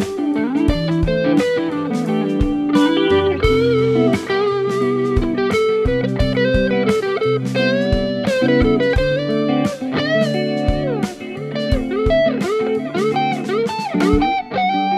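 Electric guitar played through a BOSS SD-1 Super Overdrive pedal: a lead line of quickly picked notes with string bends and vibrato. Near the end a chord is struck and left ringing.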